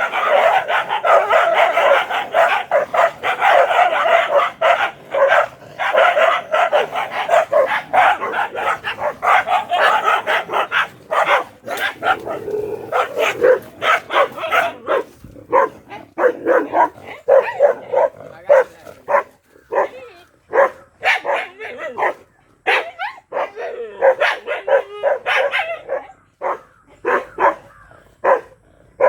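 Bhotiya dog barking rapidly and nonstop, then in shorter, more widely spaced volleys for the last two-thirds.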